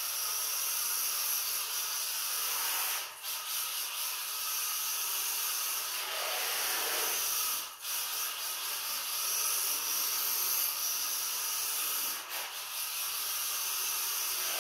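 Mini RWD RC drift car's small electric motor whirring and its tyres scrubbing sideways across a tiled floor, a steady hissing whir that drops out briefly three times as the throttle is lifted and reapplied.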